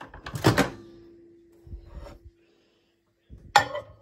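Handling sounds at a microwave oven: a sharp clatter about half a second in, with a ringing tone that fades over the next two seconds, then a clunk near the end as the microwave door is opened.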